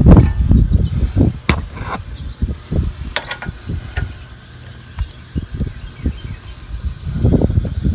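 Work noise on a car's front hub and brake assembly: irregular low thuds and bumps, with a couple of sharp metallic clinks about one and a half and three seconds in.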